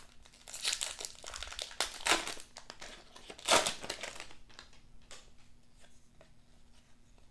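Trading-card pack wrapper crinkling and tearing in three bursts, the loudest about three and a half seconds in, followed by faint ticks of cards being handled.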